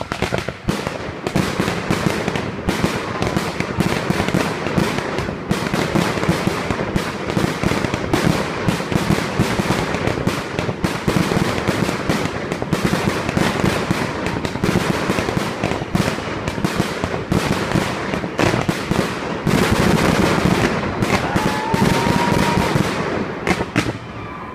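Fireworks display heard from close by: a dense, continuous run of loud bangs and crackles with no pause. A short rising whistle sounds near the end.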